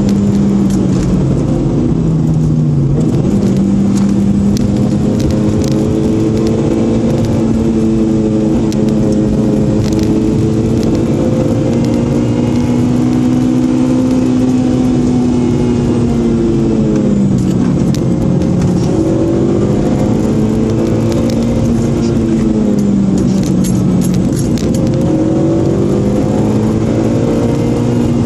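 Supercharged Honda four-cylinder engine heard from inside the car on a hard downhill mountain-road run. Its pitch rises and falls as it accelerates between curves and lifts off, dropping sharply three times, over steady tyre and road noise.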